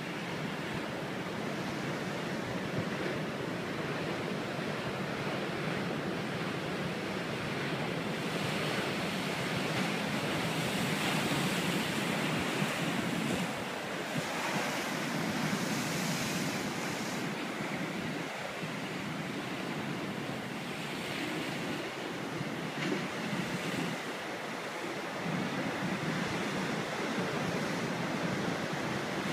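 Ocean surf pounding on coastal sandstone rocks: a continuous rush of breaking, foaming water that swells louder and hissier about a third of the way in, with smaller surges later.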